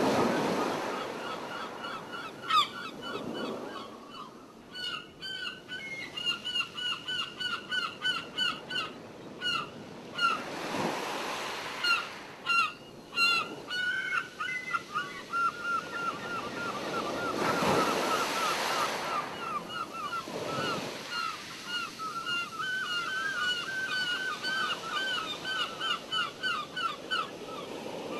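Waves washing in on a beach every several seconds, while birds call in long runs of short, repeated honking notes, several a second.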